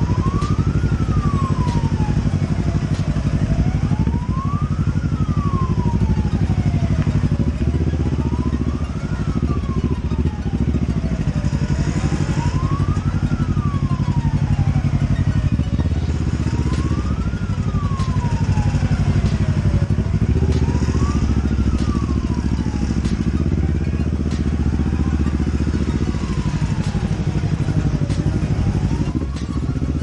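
Police siren wailing in a slow, even rise and fall about every four seconds, over the low running of motorcycle engines in slow traffic.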